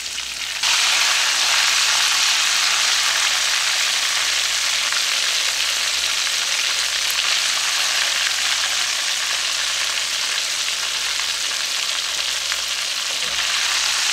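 Chicken pieces frying in hot grapeseed oil in a cast-iron skillet: a steady, loud sizzle that jumps up in level about half a second in.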